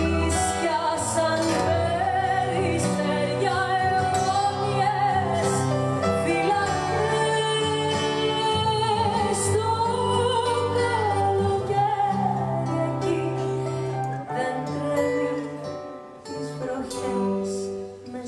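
A woman singing a Greek song live into a microphone, backed by a band with acoustic guitar. The voice carries a wavering, held melody over the steady accompaniment.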